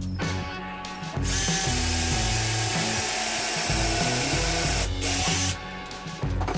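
Power drill running with a steady whine for nearly four seconds, stopping briefly, then running once more for half a second, over background music.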